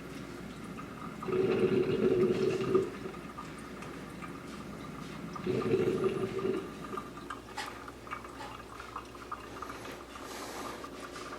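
Ratio Six drip coffee maker brewing: water gurgling and sputtering through the heater in two loud bursts a few seconds apart, with a low steady bubbling in between.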